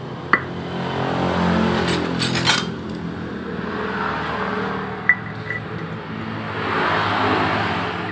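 Sharp metallic clinks and taps from the halves of a scooter's CVT pulley being handled, with a scratchy scrubbing sound as a brush cleans out the pulley's bearing bore.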